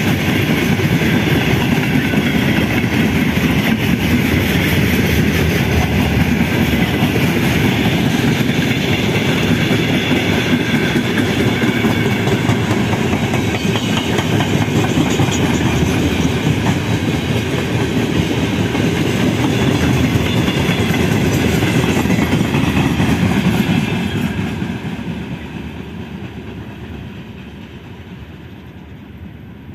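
Freight train of covered hopper wagons rolling past close by: steady wheel rumble and clatter over the rail joints, dying away from about 24 seconds in as the wagons slow down.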